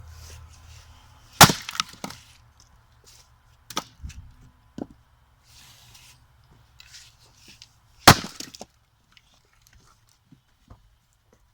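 Firewood being split by hand: two hard axe blows into a log, about seven seconds apart, each followed by smaller knocks of wood clattering.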